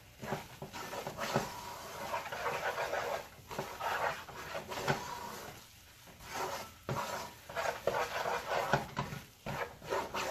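Wooden spoon stirring and scraping a thick, dry paste of onions and berbere around an aluminium pot, in repeated strokes.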